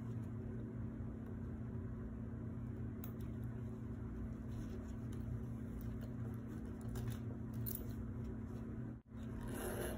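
A steady low mechanical hum, with a few faint light clicks and a brief rustle near the end.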